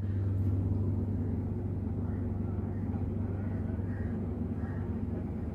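Steady low engine hum with a deep, even rumble.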